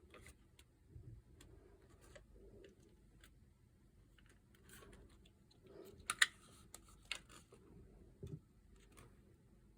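Faint, scattered small clicks and taps, with a sharper cluster of clicks about six seconds in and another a second later.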